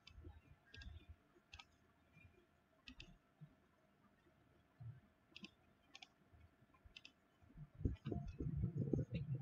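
Scattered sharp clicks, a dozen or so at irregular intervals, as the laptop's pointer is clicked on the desktop, over a faint steady hum; low rumbling handling noise comes in near the end.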